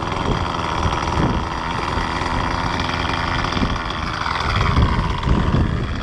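Two-stroke nitro glow engine of a Thunder Tiger Raptor 50 Titan RC helicopter being spun up with a handheld electric starter and then running steadily at idle.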